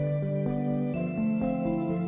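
Instrumental background music: a melody of notes changing every half second or so over held lower tones.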